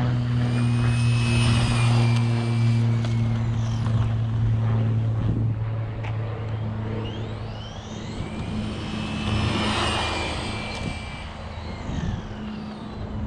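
A Traxxas X01 RC car's brushless electric motor and drivetrain whining past at speed twice, the whine rising then falling in pitch on each pass, once about a second in and again around nine to ten seconds. A steady low hum runs underneath.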